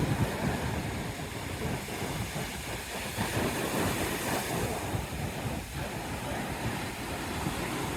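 Wind buffeting the microphone with a low, fluttering rumble, over the steady wash of surf breaking on the shore.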